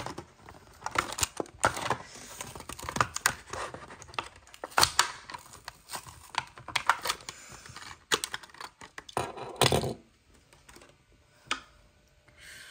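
A toy car's cardboard backing card and plastic blister pack being torn open by hand: irregular crackling, ripping and rustling in many short bursts, dying down about ten seconds in.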